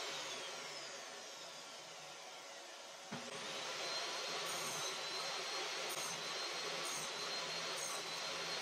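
Table saw running: its whine falls and the sound fades over the first three seconds, then it comes back abruptly and runs steady as a hardwood workpiece is pushed on a sled toward and through the blade to cut a joint notch.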